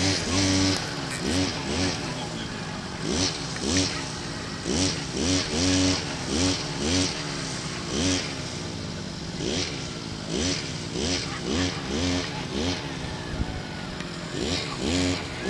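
Lure-coursing machine's motor revving up and down again and again as it reels the lure line across the field, with a hiss at each rise.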